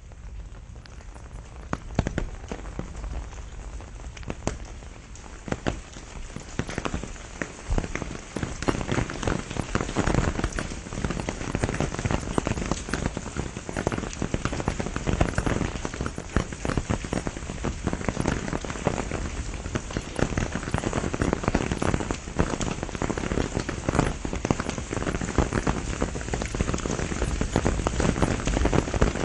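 Steady rain falling, a dense patter of close drop hits that grows heavier about eight seconds in.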